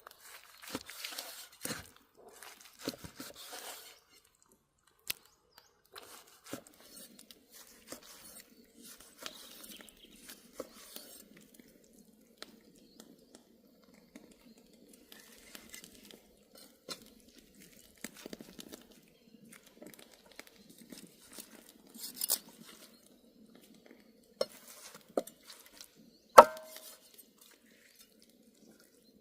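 Cookware and utensils being handled: scattered light clicks and clinks, with one loud metallic clank that rings briefly about 26 seconds in.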